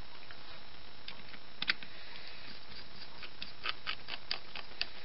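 Faint, irregular light clicks and ticks, several a second in the second half, from the steel case of a Winkhaus multi-point lock being handled and pressed into place, over a steady background hiss.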